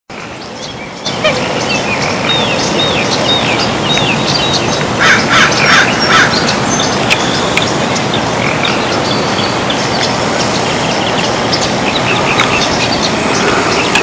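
Wild birds calling: a run of short down-slurred chirps, then a louder cluster of calls about five seconds in, with scattered chirps throughout. Under them is a steady hiss of background noise that comes in about a second in.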